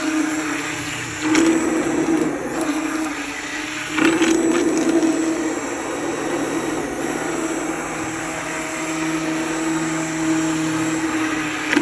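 Cuisinart immersion blender running in a pot of cooked apples, puréeing the soft chunks with a steady whirring hum. It gets briefly louder about a second in and again at about four seconds as the blade is worked through the mixture.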